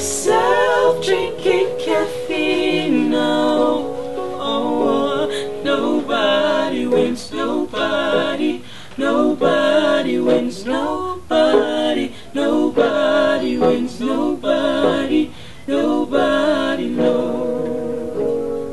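A woman singing a soul song live in short, sustained phrases with vibrato, over acoustic instrumental accompaniment.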